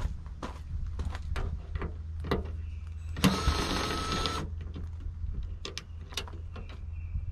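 Sharp clicks and taps of hands and a tool at a Honda Gold Wing windscreen's mounting bracket as its screws are undone, with a short mechanical whir, a little over a second long, about three seconds in.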